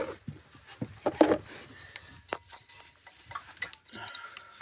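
A few light clinks and knocks of small metal parts and hand tools being handled, the loudest a little over a second in.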